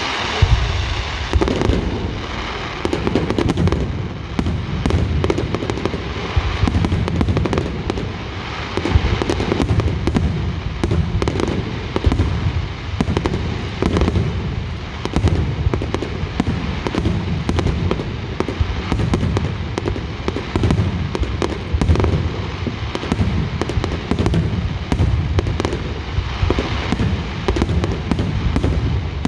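Fallas fireworks going off in a dense, continuous barrage: many bangs in quick succession over a constant low rumble.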